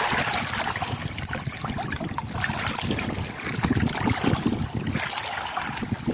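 Shallow seawater lapping and trickling over a rocky shore bottom, a continuous wash with irregular low surges.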